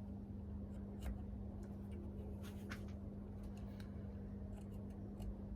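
Worn hacksaw blade scraping the insulation between the copper segments of a starter motor commutator, cutting grooves so that the segments stand proud: short, irregular scratches over a steady low hum.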